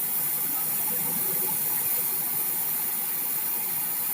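Oxy-acetylene welding torch flame burning with a steady hiss.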